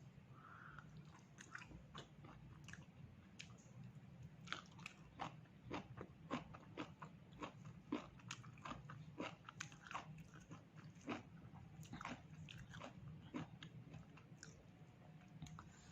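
A person eating pork close to the microphone: faint, irregular biting and chewing clicks, about one or two a second, over a low steady hum.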